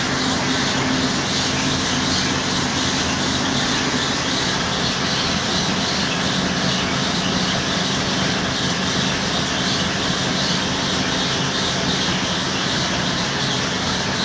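Atta chakki flour mill driven by a 10 HP electric motor, running steadily under load while grinding grain, with a constant hum beneath the grinding noise.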